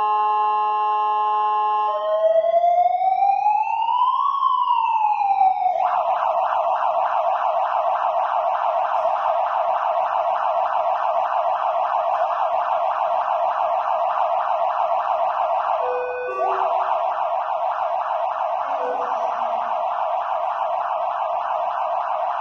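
Qlight electronic emergency-vehicle siren running through its tones: a steady multi-note horn-like tone, then one slow wail rising and falling, then a fast warble that breaks off briefly about sixteen seconds in and starts again.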